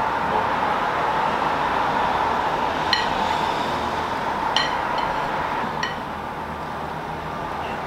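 A metal utensil clinking three times against a ceramic plate while cutting into a crème caramel, over a steady background rush.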